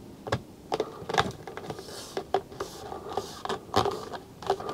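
Plastic cable track being handled and pressed into place along the ceiling, with its adhesive backing peeled off: irregular clicks, taps and scrapes, with a few short rustles of the backing paper.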